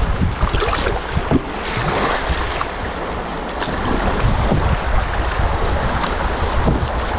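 River water rushing and splashing along a canoe's hull as it runs through riffles, with scattered slaps of water, and wind buffeting the microphone in a steady low rumble.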